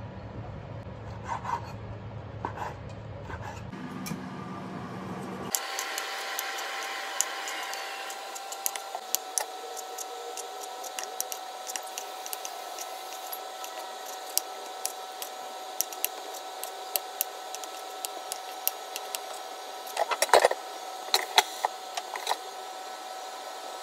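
Kitchen knife cutting liver into cubes on a bamboo cutting board: irregular sharp taps of the blade on the wood, with a quick run of louder taps near the end.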